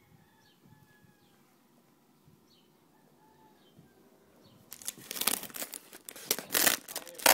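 Packaging rustling, crinkling and tearing loudly in irregular bursts from about five seconds in, as a cylinder-kit box is handled and opened. Faint short chirps come before it.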